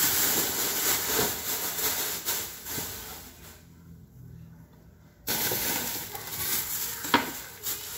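Thin plastic shopping bag rustling and crinkling as it is handled, broken by a short near-quiet gap in the middle, with a sharp click near the end.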